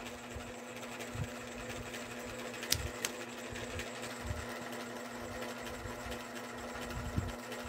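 Steady low mechanical hum, with two faint clicks about three seconds in.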